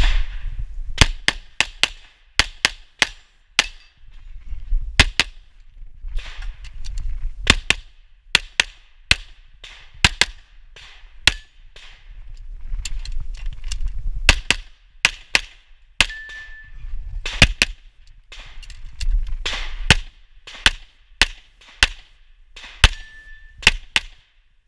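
Pistol shots in a long string of sharp reports, mostly in quick pairs less than half a second apart, with short pauses between groups filled with movement noise as the shooter changes position.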